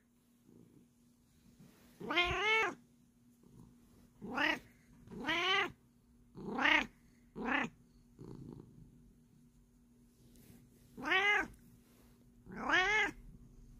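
A Bengal cat meowing seven times, each call rising and then falling in pitch. The calls come in two runs with a pause of a few seconds between them.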